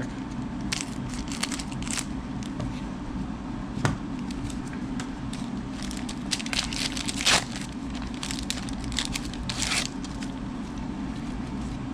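Crinkling and tearing of a trading-card pack wrapper and the rustle of cards being handled, a string of short, sharp crackles over a steady low hum.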